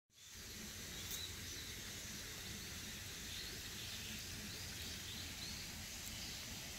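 Outdoor ambience: small birds chirp briefly and repeatedly over a steady high insect hiss and a low rumble.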